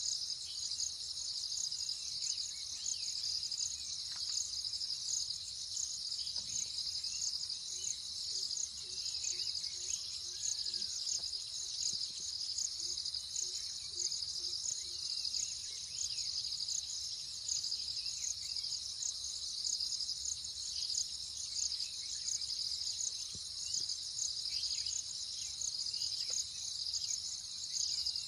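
A dense, steady chorus of insects, a high shrill trill with a fast pulse. About a third of the way in, a faint run of quick low repeated notes sounds for a few seconds, then again briefly.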